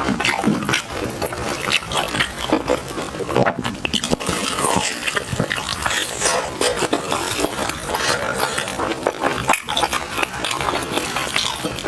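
Close-miked chewing of sticky glutinous rice food: a dense, continuous run of wet mouth clicks and smacks.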